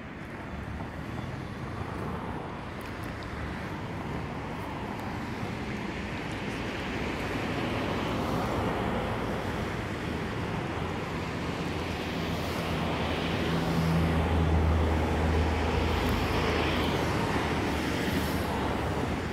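Jet engine roar of a Boeing 777-300ER's GE90 engines on approach, a steady rumble that slowly swells louder, mixed with road traffic.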